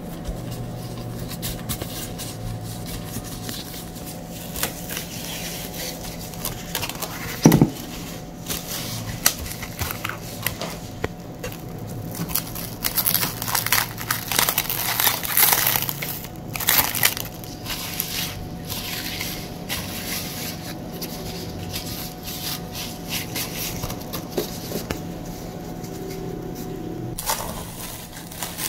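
Plastic cling film crinkling as it is pulled and stretched over a glass bowl, densest about halfway through. There is a single sharp knock about a quarter of the way in, over a steady faint hum that stops shortly before the end.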